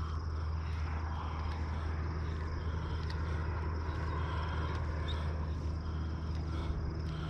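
A steady low hum, like a motor running at a distance, with faint light ticks above it.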